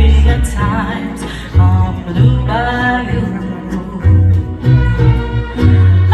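Mariachi band playing, with deep separate bass notes under strummed guitars and wavering violin lines.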